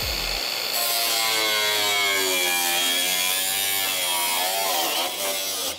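Drill driving a nibbler attachment, buzzing steadily as it chews through car quarter-panel sheet metal. The pitch wavers and sags under load, and it stops just before the end.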